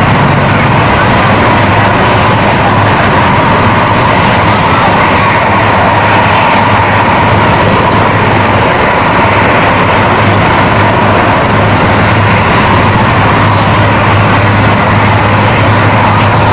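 Large transport helicopter running on the ground with its turbines and main rotor turning, a loud, steady turbine whine over the rush of the rotor, holding unchanged before lift-off.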